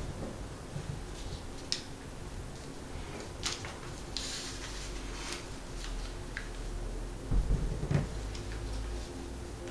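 Origami paper being folded and creased by hand against a table: scattered soft crackles and taps of the paper, with a couple of louder low knocks about seven to eight seconds in.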